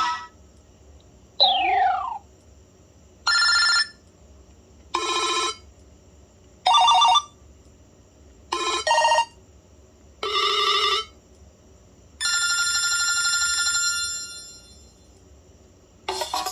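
BlackBerry Pearl 8120 playing its built-in alert tones one after another, with short pauses between: seven brief electronic chimes and beeps. The first is a falling glide and the last is a longer chime that fades away; a ringtone melody starts right at the end.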